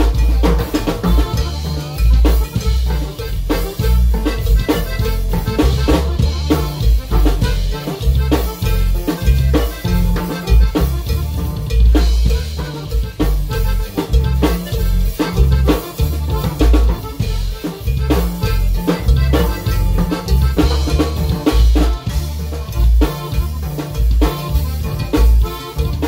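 Loud live dance-band music led by a drum kit and bass, with a steady thumping beat.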